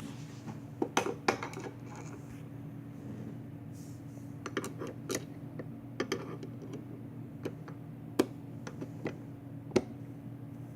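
Scattered sharp clicks and taps of a screw, screwdriver and plastic parts being handled while a screw is worked into a small hole in an LCD monitor's casing. A steady low hum runs underneath.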